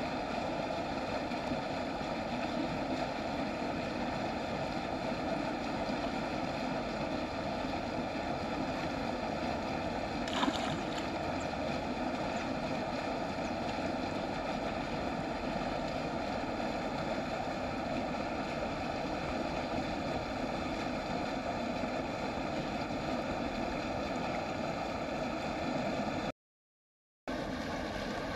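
Steady outdoor rushing noise with no clear events, a single short tick about ten seconds in, and about a second of dead silence near the end where the sound cuts out.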